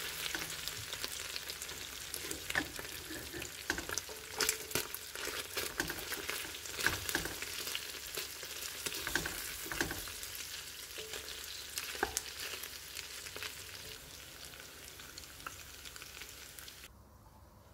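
Chicken pieces sizzling in oil in a stainless steel pressure cooker pot, stirred with a wooden spatula that knocks and scrapes against the chicken and the pot. The sizzle cuts off suddenly near the end.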